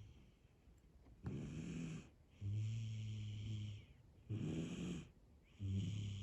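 Snoring in steady sleep, about one breath every second and a half. The breaths alternate between a low, even buzzing snore and a rougher, breathier one.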